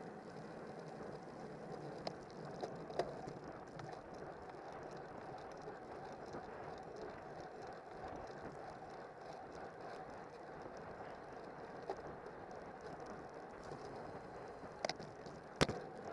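Road bike riding in a racing pack: a steady rush of wind on a handlebar-mounted microphone and tyre noise, broken by a few sharp clicks, the loudest about half a second before the end.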